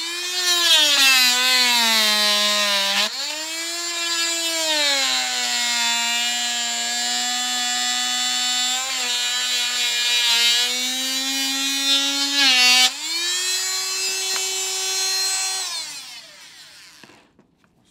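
Corded handheld electric saw cutting through a deer's skull bone at the antler base. Its motor whine sags in pitch when pressed into the bone and climbs back when eased off. Near the end it is switched off and spins down to a stop.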